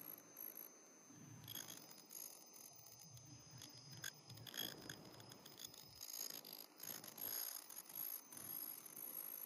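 Surgical mask production machinery running: faint irregular rattling and quick clicks over steady high-pitched tones.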